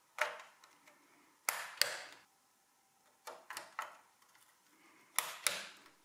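Memory modules (DIMMs) being seated in motherboard slots, with a series of sharp plastic clicks in small groups as the slot retention clips snap shut.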